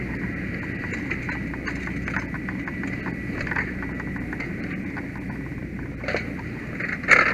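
Irregular light clicks and clatters over a steady low engine rumble and a faint steady high whine, with a sharper knock about six seconds in and a louder one near the end.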